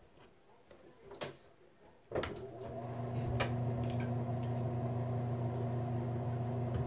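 Near silence with faint clicks. About two seconds in, a switch clicks and a steady low electrical hum starts, typical of a bathroom exhaust fan running.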